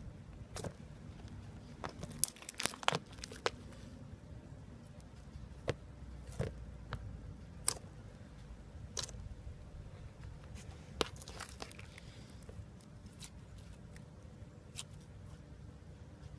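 Slime with clay mixed in being pressed and stretched by hand: scattered sticky pops and clicks, with a quick run of them about two to three and a half seconds in.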